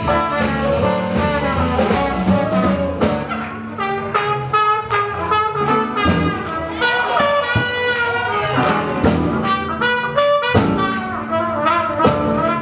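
Live jazz band playing swing: brass horns leading over piano and a steady drum beat.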